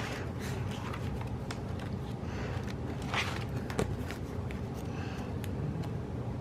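Paper stickers and planner pages being handled: a few faint taps and one brief rustle about three seconds in, over a steady low hum.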